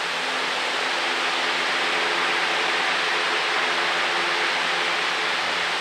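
Sonnenkönig standing electric fan running: a steady rush of moving air with a faint motor hum underneath.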